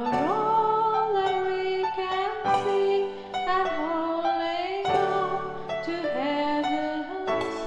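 A song: a woman's singing voice holding long notes, sliding up into them at the start and again near the end, over an instrumental backing of shorter sustained notes.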